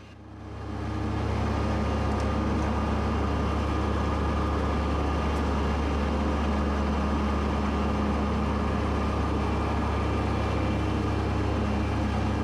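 Kubota B2601 compact tractor's diesel engine running steadily while mowing tall, wet grass, a constant deep hum with a faint steady whine above it. The sound fades in over the first second and fades out near the end.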